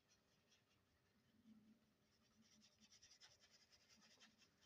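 Near silence, with faint scratchy strokes of an oil-paint brush dragged across canvas, thickest in the second half.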